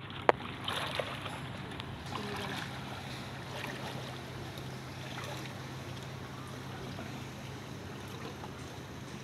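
Floodwater flowing across a street, a steady wash of moving water with a low hum under it. A sharp click comes just after the start, with a few fainter ones about a second in.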